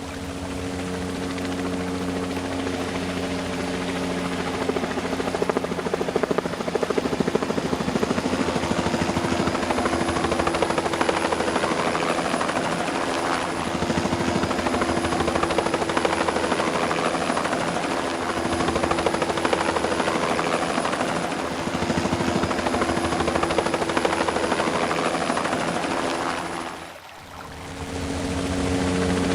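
Helicopter in flight heard from aboard: a steady engine hum under the rapid, even chop of the rotor blades. The sound briefly drops away near the end, then returns.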